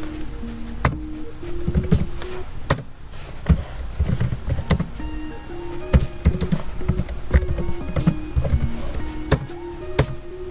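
Background music with a simple stepping melody, and computer keyboard keystrokes clicking at irregular intervals as commands are typed.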